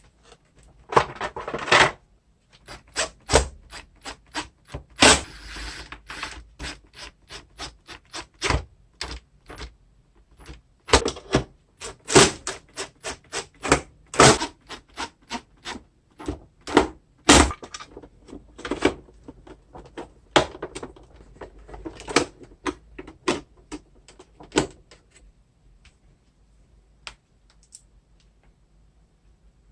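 Irregular clicks, taps and clacks of hard plastic and metal vacuum-cleaner parts being handled and fitted together while the vacuum's motor is reassembled. The clatter stops near the end.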